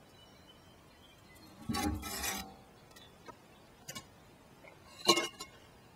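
Handling sounds: a scraping rustle about two seconds in, a couple of light taps, then a sharp clink with a brief ring about five seconds in.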